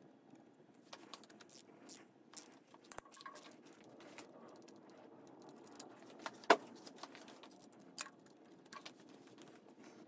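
Scattered light metallic clicks and clinks as the ARP rod bolts and connecting-rod cap of an LS engine are handled by hand, with one sharper metal click a little past the middle.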